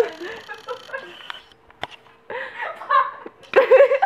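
Teenage girls giggling and snickering in short bursts; the loudest bursts come a little over two seconds in and again about three and a half seconds in.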